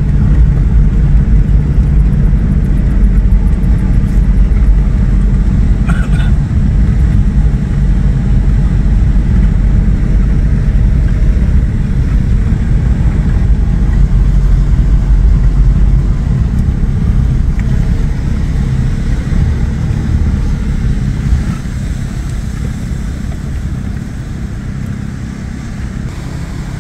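Vehicle engine and road noise heard from inside, a steady low hum that quietens over the last several seconds.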